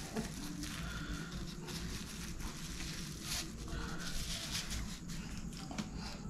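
Thin plastic bag of chili paste crinkling and rustling in the hands as the paste is squeezed out, with soft wet squishing.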